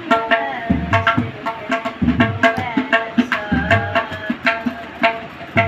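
Tabla played in a steady rhythm: crisp, ringing strokes on the small treble drum several times a second, with a deep stroke on the bass drum a little over every second. A boy sings the melody of a Sikh shabad over it.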